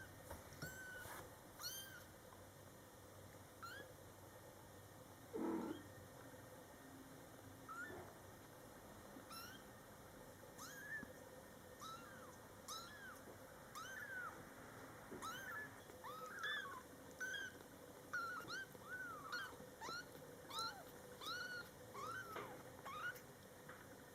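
Newborn Scottish Fold kittens meowing: many short, high-pitched mews, a few at first and then coming thick and fast. About five seconds in there is one lower, louder sound.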